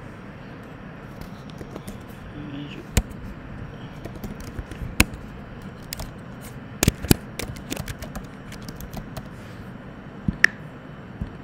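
Scattered sharp clicks of a computer keyboard and mouse as text is typed in, over a steady background hiss. The loudest clicks come about three, five, seven and ten and a half seconds in.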